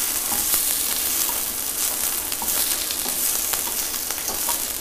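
A slice of bread frying in a stainless steel pan, sizzling steadily, with a few light ticks of a spatula pressing and moving it in the pan.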